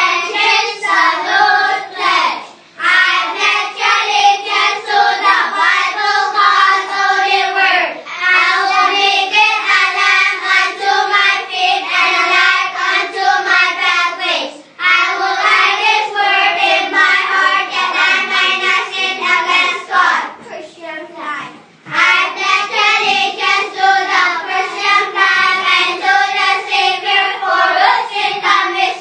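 Child singing in phrases several seconds long, with short breaks between them and a longer pause about two-thirds of the way through.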